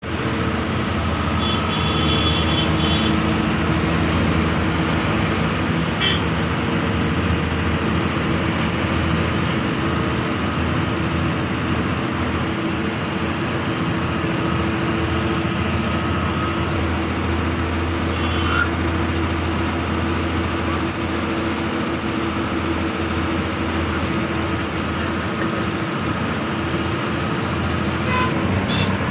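Steady engine drone and road noise of a moving vehicle, heard from on board, with a low hum that holds steady throughout.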